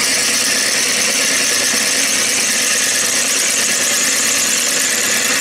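Clausing metal lathe running while a 15/32-inch twist drill in the tailstock chuck is fed into a spinning brass bushing: a steady, high-pitched hiss of the drill cutting brass over the hum of the machine.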